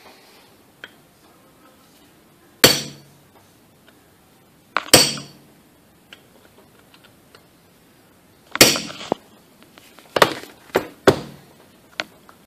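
Sharp metallic strikes and clinks of steel hand tools on a Honda manual transmission shaft and gear assembly, about six blows spaced irregularly, the last three closer together near the end, each with a short ring.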